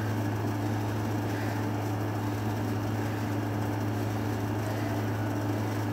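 A steady low hum over a faint even hiss.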